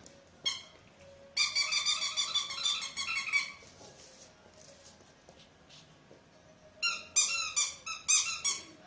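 Squeaky dog-toy ball squeaking over and over as it is squeezed: one short squeak, then a rapid run of squeaks lasting about two seconds, and another burst of squeaks near the end.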